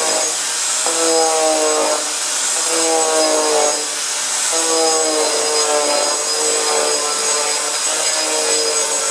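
Power tool with a pressed-diamond cutter grinding varnish off a wooden floor, over a steady gritty hiss. The motor tone drops in pitch several times, about every two seconds, as the cutter bites in under load, and picks up again in between.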